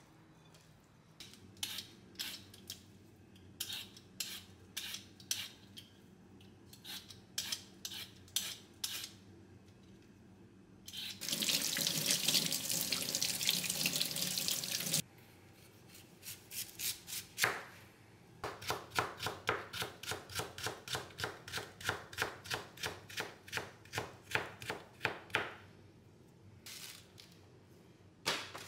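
Hands squeezing and tossing bean sprouts in a glass bowl, a scattered run of soft strokes; then a kitchen faucet runs for about four seconds while a radish is rinsed under it, the loudest part. After that a knife strikes a cutting board in a steady run of about three chops a second for some seven seconds.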